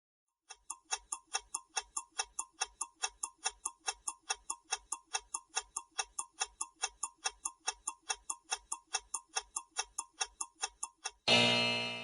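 Quiz countdown timer ticking steadily, about four ticks a second, for the ten-second answer time. Just before the end, a loud time's-up signal with several ringing tones sounds once and fades out over about a second.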